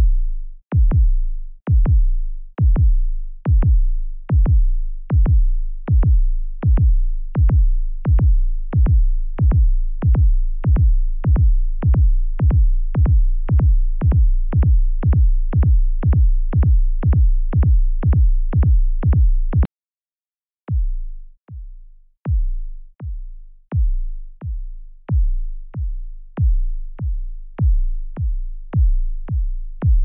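Heartbeat sound effect: deep thumps, each with a sharp click at its start. They speed up steadily from about one a second to about two a second, then stop for about a second. A second run of beats starts softer and grows louder, at about one and a half a second.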